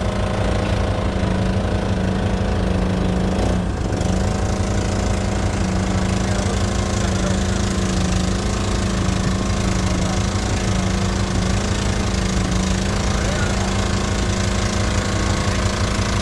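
Fishing boat's engine running steadily at an even speed, with a fast, regular chugging beat.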